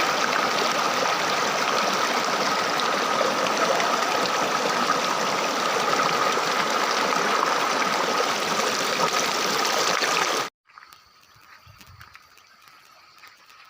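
Waterfall water rushing in a steady, dense roar of noise; it cuts off suddenly about ten seconds in, leaving only faint background sound.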